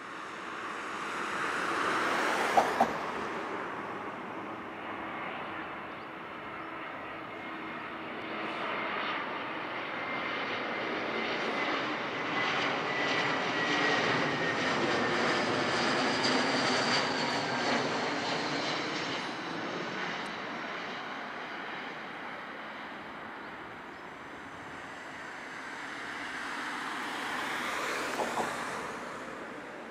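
Airbus A321 airliner's jet engines on landing approach: a steady roar that swells as the aircraft passes close by, with a whine that slowly falls in pitch, then fades and rises again a little as it nears the runway. Two brief sharp knocks, one a few seconds in and one near the end.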